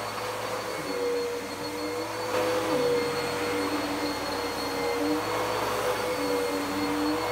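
Dirt Devil PowerMax Pet upright vacuum cleaner running steadily while vacuuming a rug: a constant motor hum and airflow hiss, with the lower hum wavering slightly in pitch and growing a little louder about two seconds in.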